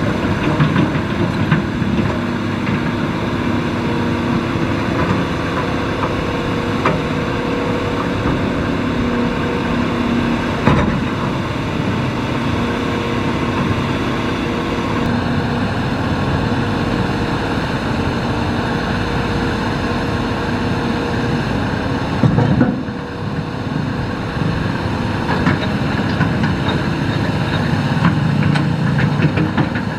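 Hitachi hydraulic excavator's diesel engine running steadily under work, with a few sharp knocks over it.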